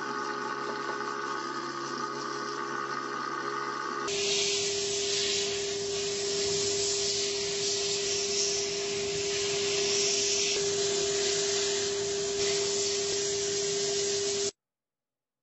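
A steady mechanical hum from a parts washer. About four seconds in, it gives way to the loud, even hiss of an abrasive blast gun spraying inside a blast cabinet, with a steady hum beneath; the hiss cuts off suddenly near the end.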